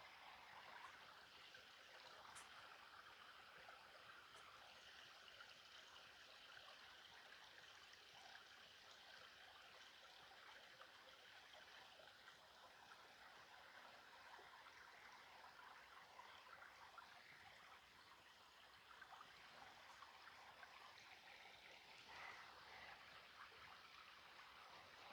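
Faint, steady trickle of a shallow stream running over little waterfalls.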